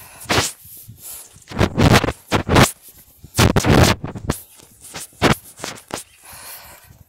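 Handling noise from a phone held in the hand: fingers rubbing and scraping over the phone and its microphone, in loud irregular scratchy bursts with short quiet gaps.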